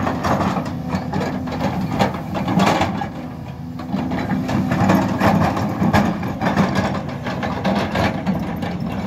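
Hydraulic crawler excavator's diesel engine running steadily under load, with irregular metallic clanks and knocks from the bucket and tracks as it works the soil.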